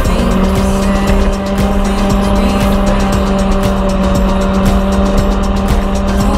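Sport motorcycle engine running at a steady, unchanging pitch through a curve, with wind rush over the microphone.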